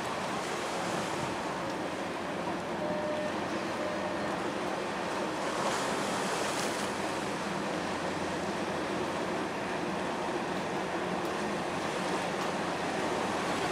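Steady rush of wind and harbour water, with a faint low hum underneath, as a large oil/chemical tanker slides close past.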